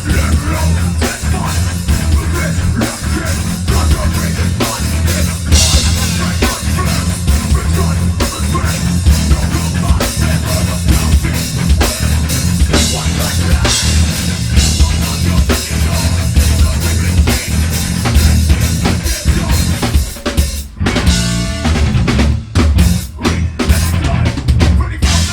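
Live metal band playing loud: a pounding drum kit with bass drum and snare under heavy low bass and guitar, with crash cymbal hits. About twenty seconds in the band stops short, then plays choppy stop-start hits together.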